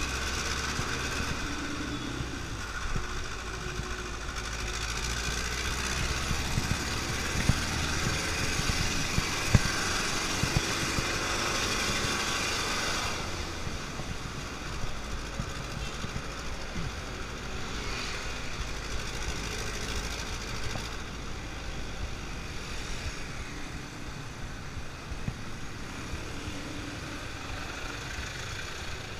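Dense city traffic heard from among it on a bicycle: truck, van and motorcycle engines running and idling close by over a steady rushing noise, with a few short knocks. The rushing noise eases about halfway through as the traffic closes up.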